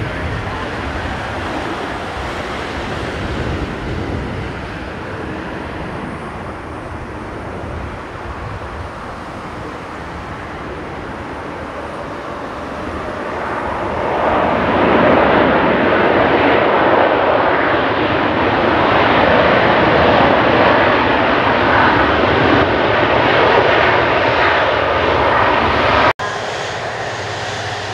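Airbus A330-200 jet engines (Rolls-Royce Trent 700 turbofans) running through a landing. About halfway through, the noise swells into a louder, sustained roar as the airliner rolls out on the runway, typical of reverse thrust after touchdown. The sound cuts off abruptly near the end and gives way to a quieter engine hum.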